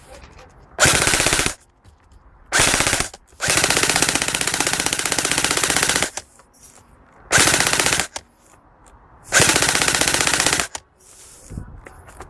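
An airsoft gun firing on full auto in five bursts of rapid shots, the third and longest running nearly three seconds.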